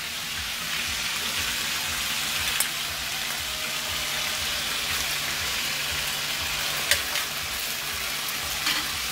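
Onions, tomatoes and garlic sizzling steadily in a hot stainless steel frying pan. A metal spoon clicks against the pan a few times as the mix is stirred.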